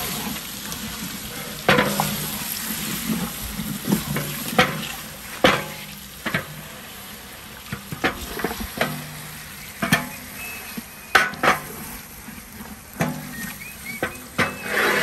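Chicken masala sizzling in a large metal pot over a wood fire while a wooden spatula stirs it, scraping and knocking against the pot many times; near the end comes a louder rattle as the metal lid is handled.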